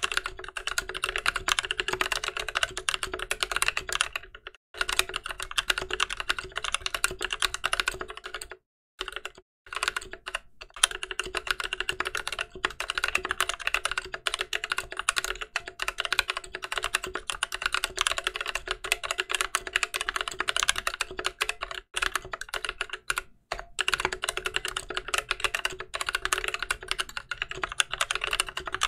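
Continuous touch-typing on an aluminium NK65 mechanical keyboard fitted with stock, unlubed NovelKeys Cream linear switches and GMK keycaps: a dense run of keystrokes, broken by brief pauses about four, nine and twenty-three seconds in.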